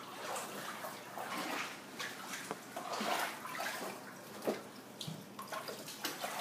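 Floodwater sloshing and splashing in uneven surges, with one sharper splash about four and a half seconds in.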